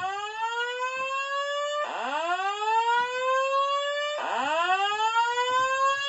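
Fire alarm voice-evacuation speaker sounding the whoop evacuation tone: a rising sweep that repeats about every two and a half seconds. This is the alert tone played between rounds of the recorded evacuation message.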